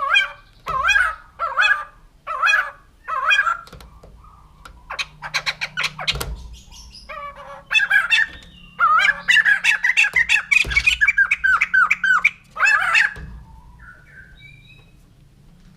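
White-crested laughingthrush calling: a string of short wavy phrases, then a rapid dry chatter about five seconds in, then a long, loud bout of its laughing chorus from about eight to thirteen seconds, ending in a few soft notes.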